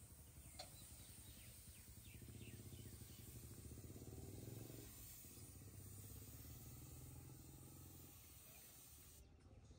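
Faint hiss of a gravity-feed paint spray gun spraying, over a low steady hum; the hiss stops suddenly about nine seconds in.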